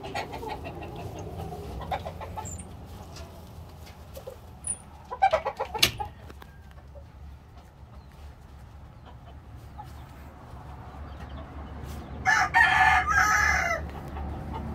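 Gamecock roosters in a coop: a short clucking call with a sharp knock about five seconds in, then a rooster crowing once near the end, a single call about two seconds long.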